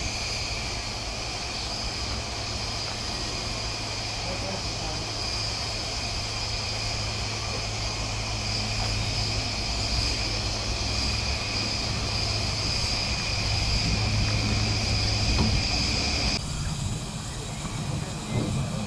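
A miniature steam locomotive stands on a turntable that is being pushed round by hand. There is a steady hiss with a high, even whine and a low hum underneath. The sound cuts off abruptly near the end.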